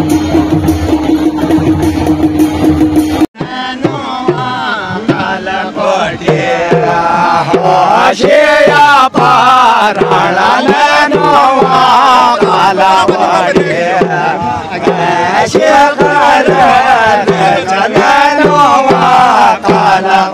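Background music for about the first three seconds, then a sudden change to a group of men singing a folk song together over a steady hand-drum beat.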